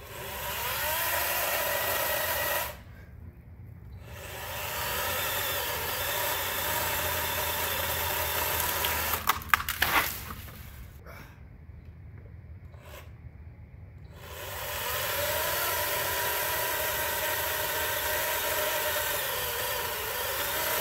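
Battery-powered electric chainsaw cutting through a flowering plum tree branch in three runs with short pauses between them. About halfway through there are a few sharp cracks as the branch breaks.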